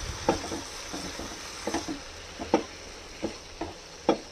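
Silicone spatula stirring chicken curry in a nonstick pan, making a few irregular soft knocks and scrapes against the pan over the steady sizzle of the bubbling gravy.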